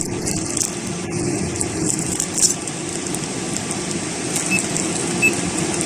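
12-volt parking air conditioner running steadily in energy-saving mode, its fan on the second speed blowing with a low hum. A few faint short high beeps come in the second half.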